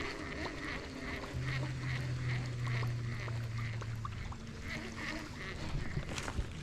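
An animal calling outdoors: a short high note repeated about two to three times a second, with a low steady hum from about a second and a half in that stops after about four seconds.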